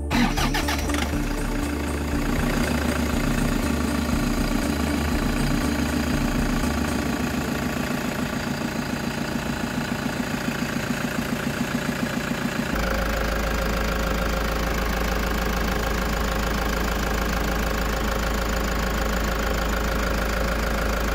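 Toyota 1KD-FTV four-cylinder turbodiesel engine idling steadily, its accessory belt and pulleys turning, with a new alternator pulley fitted to cure a sucking sound at shutdown. The sound changes abruptly about 13 seconds in.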